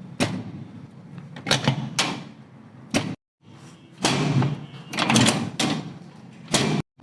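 A series of sharp cracks and thuds from chiropractic adjustments, about seven separate impacts, with the sound cutting off abruptly twice.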